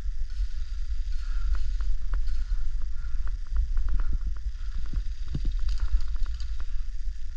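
A steady low rumble on the camera microphone, with irregular sharp clicks and ticks scattered through it.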